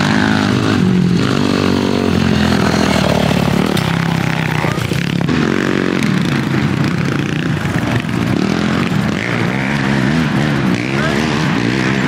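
Sport quad (ATV) engines running and revving, the pitch rising and falling again and again.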